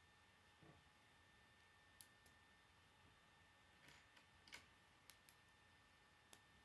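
Faint, scattered clicks of K'nex plastic rods and connectors being snapped together and handled, about eight over a few seconds.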